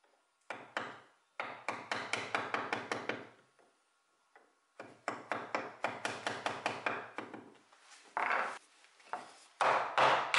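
Steel chisel blade scraping quickly back and forth in a small metal keyhole escutcheon and its recess in the wooden desk top: two runs of rapid strokes, about six a second, then a couple of longer, louder scrapes near the end.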